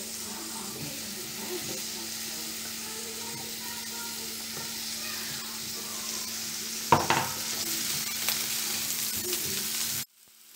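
Chopped onions sizzling in ghee in a stainless steel frying pan as they are tipped in and stirred with a silicone spatula. There is a steady hiss over a faint low hum, a sharp knock about seven seconds in, and the sizzling cuts off abruptly near the end.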